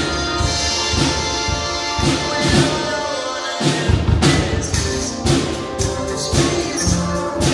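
Live drum kit (Ludwig) played with frequent cymbal crashes and drum hits over accompanying music with sustained chords. The bass and drums drop out briefly a little past halfway, then come back in.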